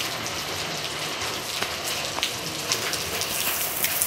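Steady rain falling, with scattered close drops ticking.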